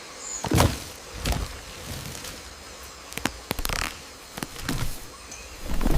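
A string of sudden thuds and short swishes, several in a row, with a faint hiss between them; the loudest come about half a second in and near the end.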